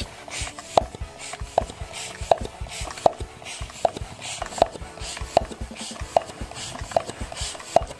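Giyo GF-55P steel floor pump worked in steady strokes, about ten in all, roughly one every three-quarters of a second; each stroke ends in a short knock with a metallic ping, and a rush of air hisses with each push. A road bike tyre is being inflated through a Presta valve toward 100 psi.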